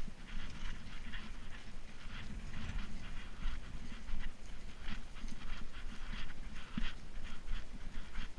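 A trail runner's hard, rhythmic breathing and footfalls on a dirt trail while running, about two to three strokes a second, over a steady low rumble on the microphone.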